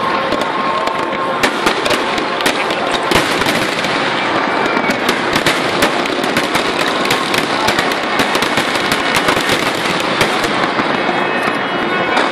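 Aerial fireworks bursting overhead: a dense, continuous run of sharp crackling pops and bangs from overlapping shells.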